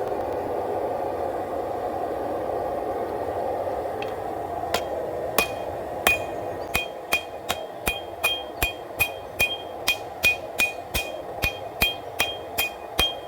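Blacksmith's hammer striking a hot W-2 steel knife blank on an anvil, drawing the blade down thinner. A steady rushing noise comes first, then the blows start about five seconds in: a few spaced strikes, then a regular rhythm of about two and a half ringing blows a second.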